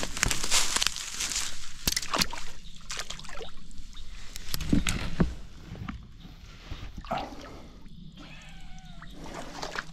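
Bare feet sloshing through shallow water at a pond bank, with splashes and drips as a shot bullfrog is lifted out of the water. The sloshing is loudest about five seconds in.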